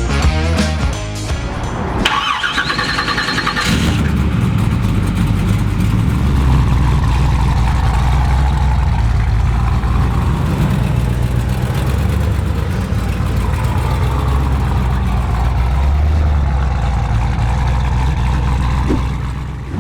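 The 1969 Camaro's twin-turbo LSX V8 being cranked by the starter, a high whine for about two seconds, then catching about four seconds in and running with a steady low rumble. Music plays under it.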